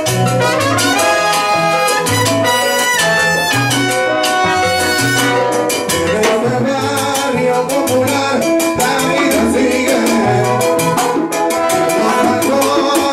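Live salsa band playing: a trumpet and trombone section plays a riff over a repeating bass line and percussion, and from about halfway a man's voice sings into a microphone over the band.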